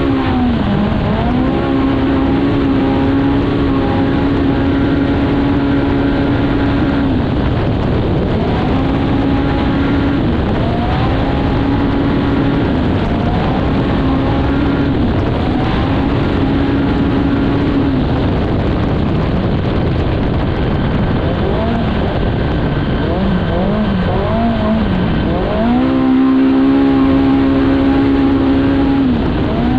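Polaris Factory Pro R race UTV's four-cylinder engine at high, steady revs under full throttle, with a continuous rush of noise underneath. The revs drop briefly and climb back several times as the driver lifts off and gets back on the throttle, and rise and fall repeatedly for a few seconds near the end before settling high again.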